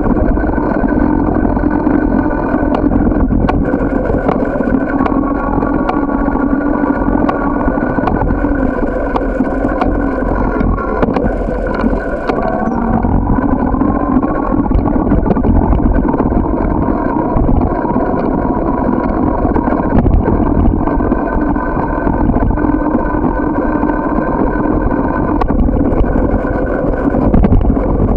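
Steady wind buffeting on the microphone and tyre rumble from a bicycle riding over pavement, with frequent small jolts and knocks from bumps in the path.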